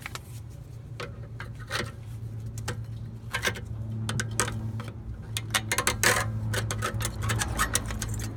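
Flathead screwdriver prying at a car's rear brake caliper, making irregular metal clicks and scrapes over a steady low hum.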